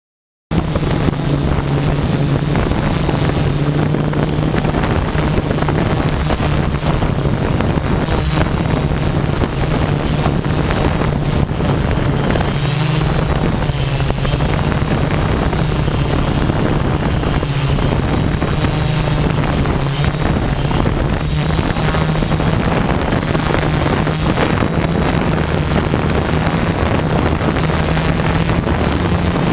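OFM 650S V2 quadcopter in flight, its motors and propellers humming steadily, with wind buffeting the microphone. The sound starts abruptly about half a second in.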